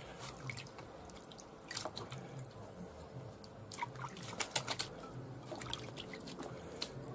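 Hands working raw minced meat and patting it into a patty: faint, irregular wet squelches and slaps, bunched together about four to five seconds in.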